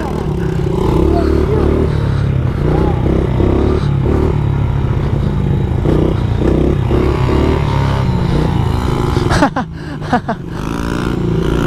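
Small 70cc pit bike engine held at steady throttle through a long wheelie. About nine and a half seconds in the engine note breaks off sharply and drops, as the front wheel comes down, then picks up again.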